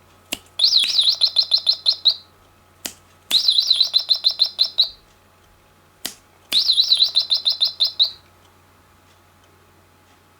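A songbird singing the same phrase three times, each a short sharp note followed by a rapid run of about a dozen high trilled notes lasting a second and a half.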